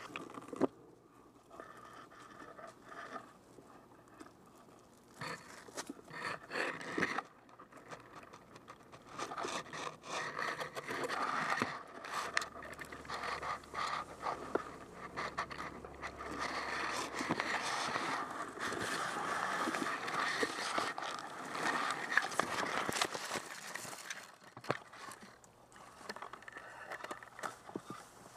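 Tall grass rustling and scraping against a helmet-mounted camera as an airsoft player crawls through it, crackling with dry stalks. It starts in short bursts, then runs louder and continuous through the middle before easing off near the end.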